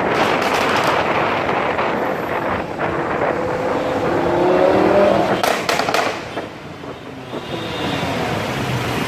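Lamborghini Huracán's V10 through an aftermarket Fi valved exhaust, running loud with sharp exhaust crackles, a tight cluster of pops about five and a half seconds in. The sound eases briefly near the seven-second mark, then builds again.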